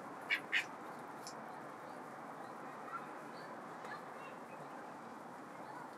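Two short, sharp bird calls in quick succession just after the start, then a couple of faint chirps, over a steady background hiss.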